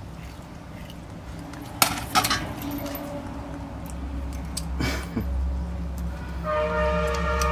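A stainless steel feed pot and the chain it hangs from clinking as guavas are knocked and dropped into it, with two sharp clinks about two seconds in and another near five seconds. Near the end a rooster starts crowing.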